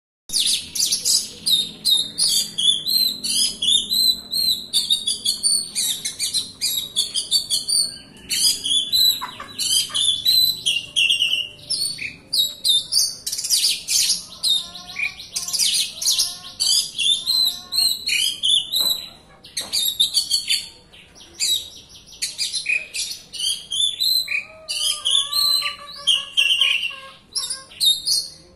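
Oriental magpie-robin (kacer) singing a dense, non-stop song of rapid, varied chirps and whistles, with hardly a pause. Lower whistled phrases come in around the middle and again near the end.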